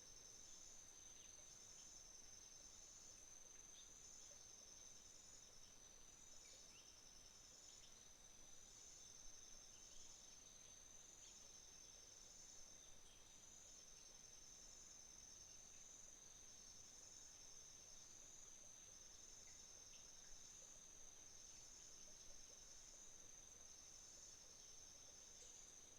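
Faint autumn insect chorus: one insect trilling on a steady high note, and another singing in repeated pulsed phrases about every two seconds, with a few brief faint bird chirps scattered through.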